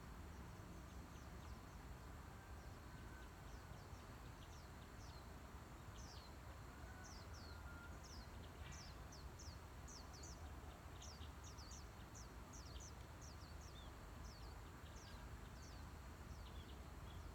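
Birds chirping faintly outdoors: many short, high, falling chirps, several a second, thickest in the middle stretch, over a low steady rumble of wind or ambient noise.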